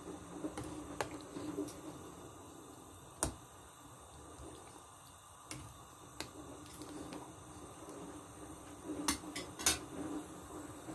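Pot of chicken soup simmering on the stove, a low steady bubbling broken by a handful of sharp clicks and light taps.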